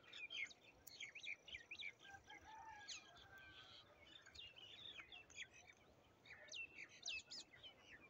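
Faint chorus of small birds chirping, many short high calls overlapping. A few quick swooping notes come near the end.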